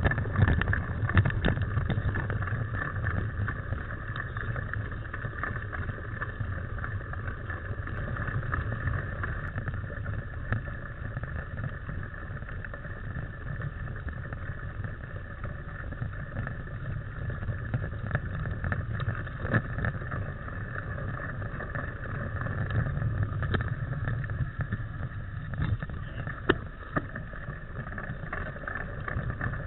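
Ride noise from a mountain bike on a dirt trail: a steady rumble of tyres and wind on the microphone, with scattered clicks and rattles from the bike and camera mount.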